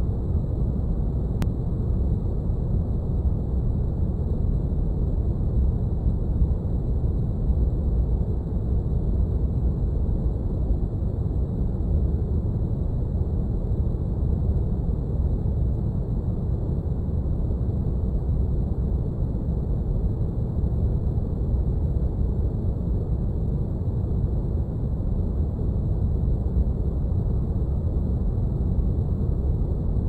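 Synthetic spaceship cockpit ambience: a steady, unchanging low rumble of brown-noise-like hum, with little above the low range.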